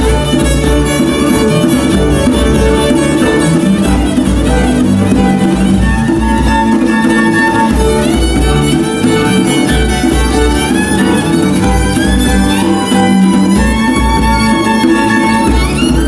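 Live acoustic folk ensemble playing a lively tune: the fiddle carries the melody over a bowed low string instrument and a bowed double bass, with a hand drum keeping a steady beat.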